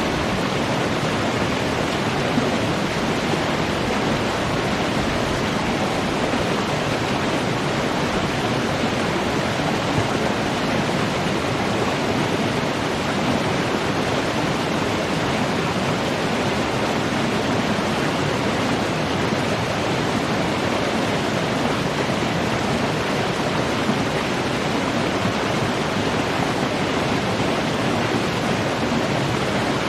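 Running water rushing steadily, with no change in level.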